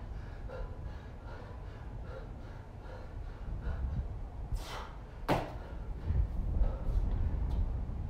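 Heavy rhythmic breathing during handstand push-ups, then a short whoosh and a sharp thud just after five seconds in as the feet come down from the handstand onto the floor, followed by a low rumbling noise.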